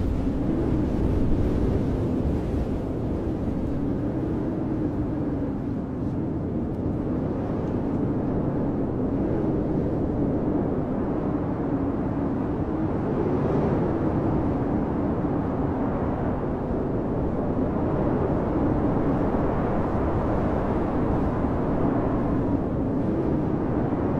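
Blizzard wind blowing steadily: a deep, continuous rushing with a faint low howl that wavers in pitch, swelling gently a few times.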